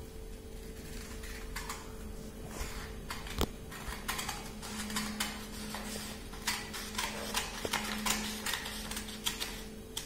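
Scissors cutting through a sheet of origami paper: a string of irregular snips with paper rustling.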